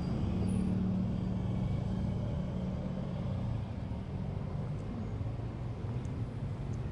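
Street traffic: a steady low hum of vehicle engines, with a few faint ticks in the second half.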